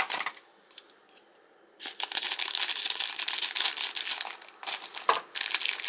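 Plastic wrapping crinkling and rustling as a pack of trading cards is handled and pulled open, starting about two seconds in.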